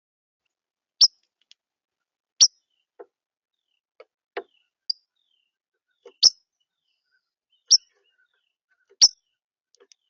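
A bird giving single sharp chip calls, five loud ones about a second and a half apart, each a quick downward-sweeping note. A few fainter low knocks fall between them.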